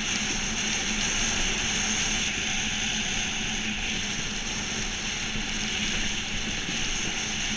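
Monotype XV iceboat sailing across the ice: a steady rushing noise from its runners on the ice and the wind, with a constant low hum underneath.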